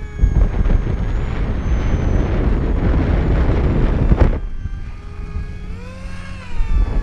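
Wind rushing over the microphone, then from about four and a half seconds the XK A1200 electric glider's motor and three-blade propeller whining, the pitch rising and then falling back.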